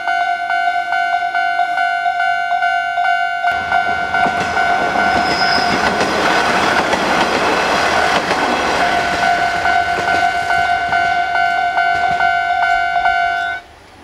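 Japanese level-crossing warning bell ringing in a fast, even repeating chime. About three and a half seconds in, a JR Hachikō Line diesel railcar runs through the crossing, and its rushing wheel noise covers the bell for about ten seconds. Near the end the bell cuts off suddenly, the signal that the crossing is clear.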